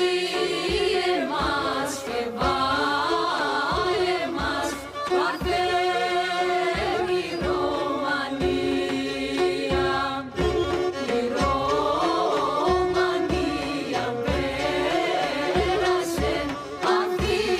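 Theme music: a winding, ornamented melody over a steady held drone, with regular drum strokes.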